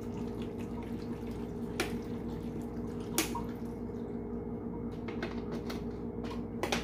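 Water being poured from a plastic water bottle into a blender jar packed with chopped cucumber and greens, over a steady hum, with a few sharp clicks and a cluster of clicks near the end.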